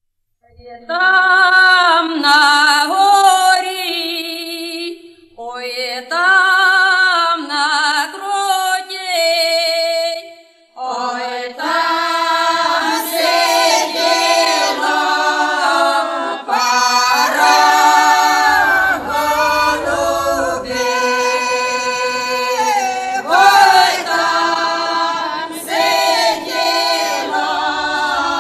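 Choir singing as a soundtrack, led by female voices with a wavering vibrato; after brief pauses around five and ten seconds in, more voices join in a fuller, denser chord.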